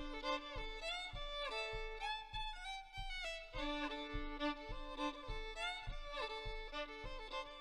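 Solo fiddle bowed live: a lively melody with slides between notes over a held low drone note that drops out briefly midway. A soft low thump about every half second keeps the beat.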